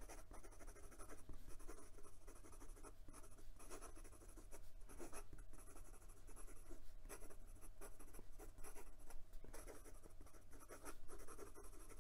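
Faint, irregular scratching of a Ranga 3C ebonite fountain pen's nib gliding across notebook paper in quick cursive handwriting, stroke after stroke.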